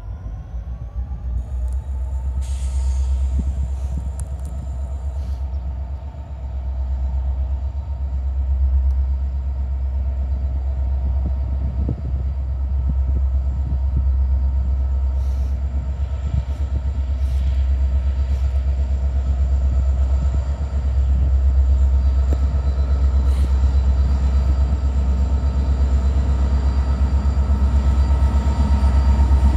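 Canadian National SD60 locomotive's turbocharged V16 diesel approaching. It makes a steady low rumble with faint steady higher tones, and it grows slowly louder as the train draws near.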